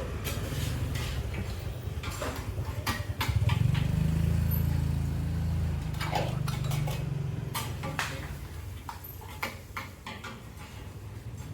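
A motor vehicle's engine running close by, growing loud about three seconds in and easing off after about seven seconds, with scattered clinks of dishes and cutlery.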